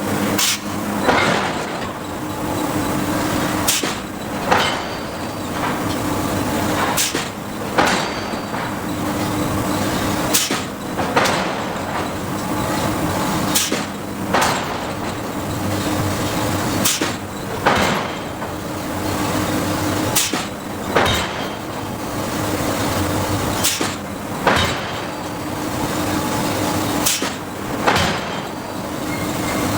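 Hydraulic forging hammer striking hot steel in pairs of heavy blows, a pair about every three seconds, over the steady hum of the machine's hydraulics.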